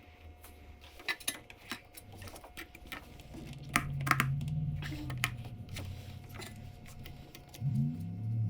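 Light metallic clicks and clinks of tools and intake parts being handled, scattered irregularly, with a low steady hum coming in about three seconds in.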